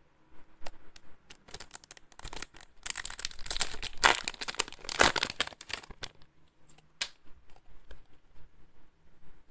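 Packaging being torn open and crinkled by hand. There is a dense crackling stretch of about three seconds in the middle, with scattered handling clicks before and after.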